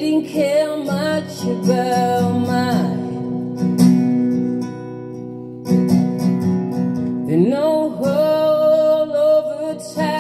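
Acoustic guitar song with a sung vocal line, played back through a pair of Wilson Audio TuneTot desktop speakers driven by Leema Acoustics Elements amplifiers. The voice drops out briefly around the middle and returns in long held, gliding notes near the end.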